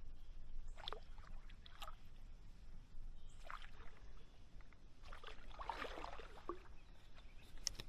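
Paddle strokes in shallow creek water from a stand-up paddle board: a handful of soft splashes and drips at irregular intervals, with a longer cluster of splashing past the middle.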